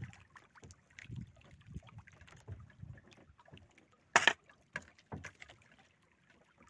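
Hands and pliers working a hook out of a caught fish: faint scattered clicks and rustles, with one sharp loud knock about four seconds in.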